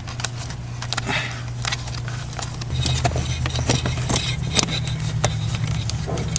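Hand-tool clicks and short scrapes as a screw is driven in to hold the plastic cover by the blower motor, over a steady low hum that grows a little fuller and louder almost three seconds in.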